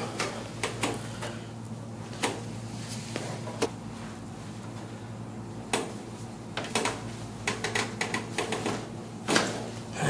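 Scattered small clicks and taps from the patient shifting on the padded chiropractic table as she is set up lying on her side. Near the end comes a quick run of sharper cracks: the low back popping under a side-posture lumbar adjustment.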